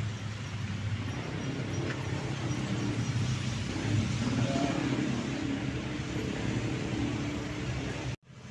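A bus engine running, a steady low hum with a slight rise in pitch about halfway through. It cuts off abruptly near the end.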